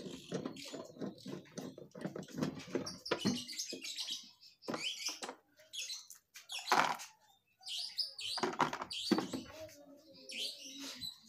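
Plastic scraping, creaking and clicking as a Honda Vario scooter's under-seat storage compartment is handled and worked loose by hand. The sounds come irregularly, with a couple of louder knocks in the second half.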